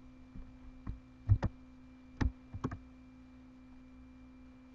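A few scattered computer keyboard and mouse clicks, about six in the first three seconds, over a steady low electrical hum.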